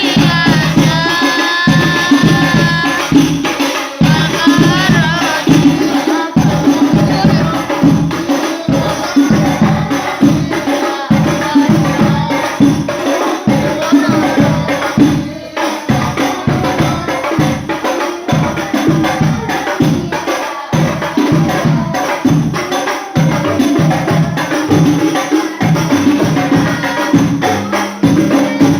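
Rebana frame-drum ensemble playing a fast, dense rhythm for sholawat devotional music, with a singing voice over it during the first few seconds.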